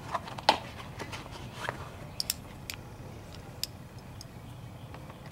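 Handling noise from a 2005 Dodge Caravan's plastic instrument-cluster housing: scattered clicks and light knocks, the loudest about half a second in, then a few sharp ticks over the next couple of seconds as a tool meets the bulb sockets, over a steady low hum.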